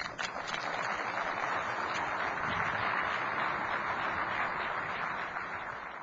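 Audience applauding, starting suddenly and holding steady as a dense patter of clapping, tapering slightly near the end.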